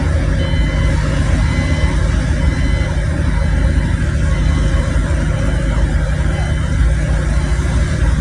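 Heavy construction machinery's diesel engine running steadily, a low rumble with a constant hum.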